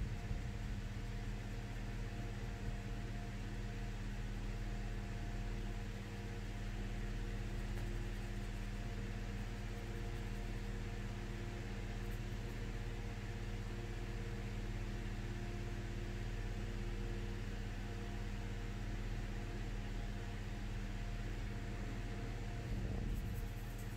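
Steady background hum with a constant hiss, holding several fixed low tones and staying level throughout, like a fan or appliance motor running.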